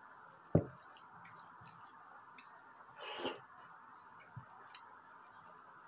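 Eating with bare hands: soft squishy sounds and chewing as fingers work rice and saucy stewed meat, with scattered small clicks over a faint steady hiss. A single dull thump about half a second in is the loudest sound, and a short noisy smack comes about three seconds in.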